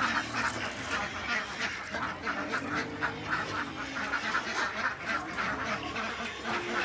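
A flock of laying ducks quacking continuously, with many short calls overlapping one another.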